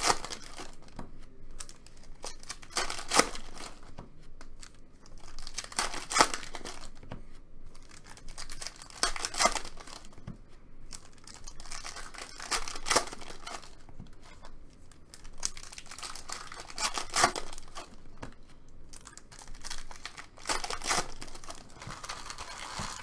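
Foil trading-card pack wrappers being torn open and crinkled, one pack after another, a crackly burst coming every three to four seconds.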